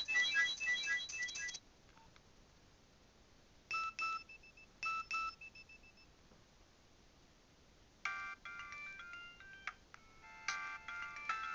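Nokia 7200 mobile phone ringtones playing one after another. A polyphonic melody ends in the first couple of seconds. Then comes a short electronic two-note phrase, played twice, that trails off in fading echoes. A new, busier melody starts about eight seconds in.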